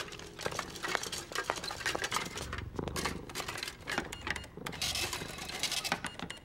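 Tin cans of cat food clinking and knocking as they are set down and stacked on a shop counter, a quick irregular run of light clacks.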